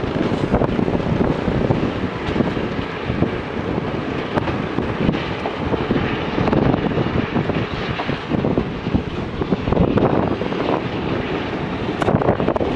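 Diesel engine of a JCB 3DX backhoe loader running steadily as it digs and loads, with wind buffeting the microphone.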